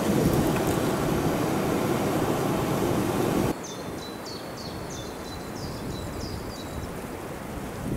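Small camping gas stove on a screw-on cartridge burning under a moka pot, a steady loud rushing noise. It cuts off suddenly about three and a half seconds in. A small bird then sings a run of short high chirps over quieter woodland background.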